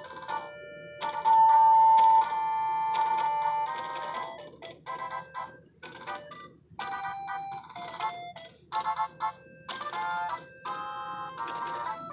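Pokémon Bulbasaur tap-dancing toy playing a tinny electronic jingle of beeping notes from its small speaker, with a long loud note about a second in, while the figure's feet click along with the tune.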